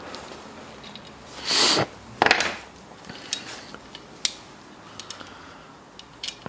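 Small metal bow parts being handled as a Picatinny rail mount is worked off a compound bow's riser: a brief rustle about a second and a half in, then a sharp clatter of metal clicks, followed by a few scattered light ticks.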